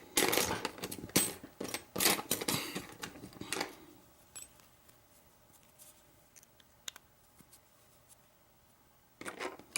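Plastic wrap and paper packaging crinkling and rustling as a padlock is worked free of it, dense for about four seconds, then a few faint clicks and a short rustle near the end.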